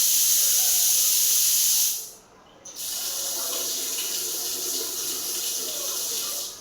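Water gushing hard from a plumbing outlet being tested, in two runs: shut off briefly about two seconds in, then turned on again a little weaker.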